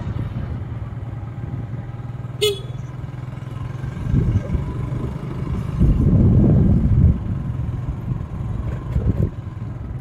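Scooter engine running steadily while riding, with road and wind noise. One short high beep comes about two and a half seconds in, and a louder rush of wind noise between about six and seven seconds.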